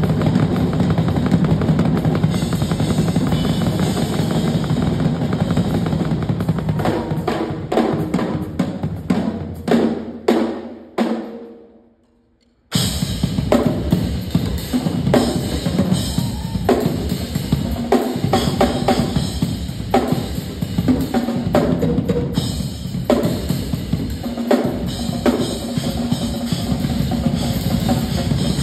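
Two drum kits played together in a duet: busy drumming on bass drum, snare and cymbals. About seven seconds in it thins to a few separate hits that ring out and fade, there is about a second of near silence, then the full drumming comes back in suddenly and carries on.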